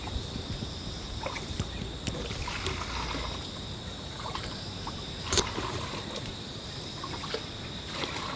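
Insects trilling steadily in a high, even drone, with scattered small knocks and rustles and one sharper click about five seconds in.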